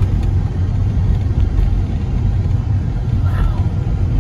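Steady low road-and-engine rumble of a vehicle being driven, heard from inside the cabin.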